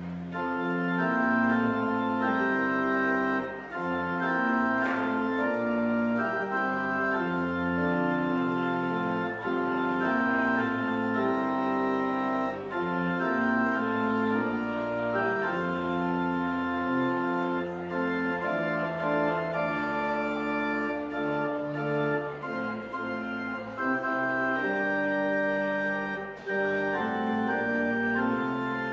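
Two-manual organ playing a postlude: steady held chords that change every second or so, over sustained low bass notes.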